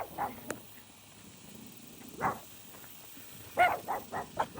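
Dogs barking with a few short barks: a single bark about halfway through and several in quick succession near the end.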